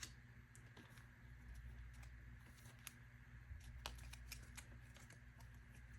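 Very quiet handling of photocards and plastic binder pages: scattered faint clicks and light rustles over a low steady hum of room tone.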